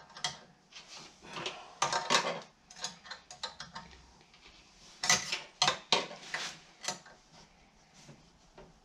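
Metal spanner clinking and scraping on the nut and steel parts of an OZITO table saw's riving knife mount as it is adjusted, a string of sharp, irregular clicks that come thickest and loudest about halfway through.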